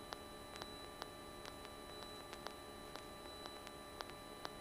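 Quiet aircraft intercom audio between radio calls: faint hiss and a steady high electrical whine, with light ticks about twice a second.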